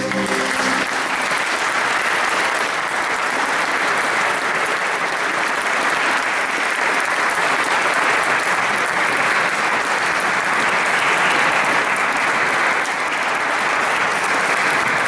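Audience applauding steadily. The last held chord of the choir and organ dies away within the first second.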